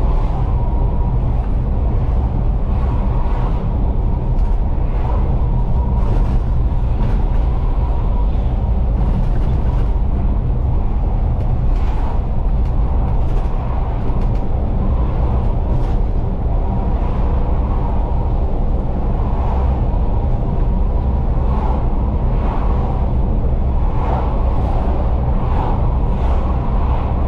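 Cab interior of a Scania N250UD double-decker bus cruising at steady speed: a constant rumble of the engine and tyres on the road, with a faint steady high whine and light rattles.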